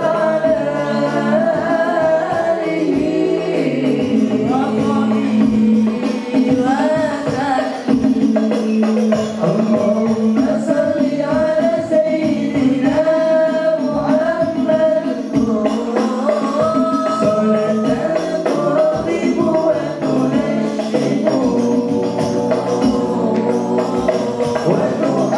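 Sholawat sung by a boy's solo voice through a PA, with an al-Banjari hadrah group accompanying on frame drums and joining with backing voices.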